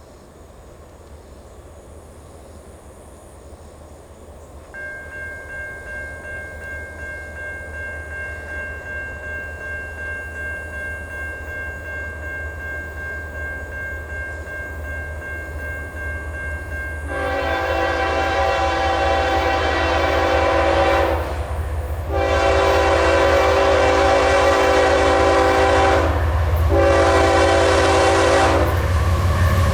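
CSX ES44AH locomotive's Nathan K5HL five-chime horn sounding the grade-crossing pattern: two long blasts, a short one, then another long one starting near the end. Under it is the low rumble of the approaching diesel, growing louder. From about five seconds in, a grade-crossing signal bell rings steadily, pulsing about twice a second.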